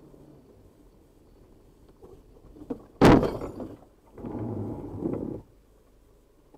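A car crashing on a snowy road: one loud, sharp impact about three seconds in, then a rough, noisy rumble lasting just over a second, about a second later.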